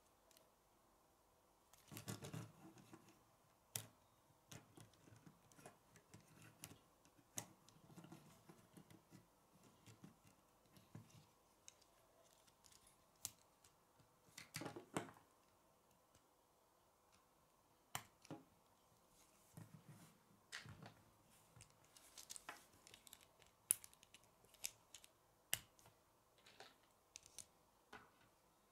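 Plastic K'nex pieces being handled and snapped together: irregular sharp clicks and brief rustles of parts, faint overall with a few louder snaps.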